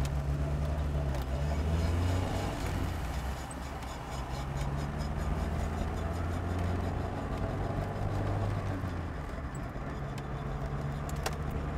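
Car driving, a steady low engine drone whose pitch shifts up and down a few times with the engine speed.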